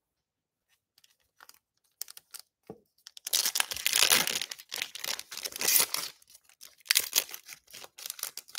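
A 2021 Panini Prizm Draft Picks trading-card pack's shiny foil wrapper being torn open by hand. A few light clicks come first, then about three seconds of dense tearing and crinkling, then more crinkling near the end.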